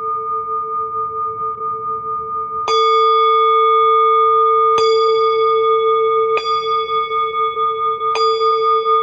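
Singing bowl ringing with a steady, gently wavering tone, struck four times, each strike bringing a bright shimmer of high overtones that fades while the main tone keeps sounding.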